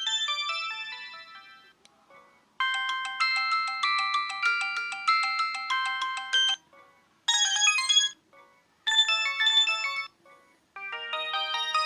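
Preloaded ringtones of a Samsung J700V phone previewed one after another: one melody fades out, then several short bright synthesized ringtone melodies each start and cut off abruptly, with brief pauses between them.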